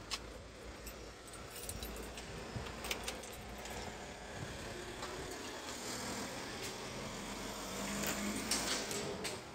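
Sharp clicks and a jingle of keys as a glass entrance door with a lever handle is opened, over a steady low rumble.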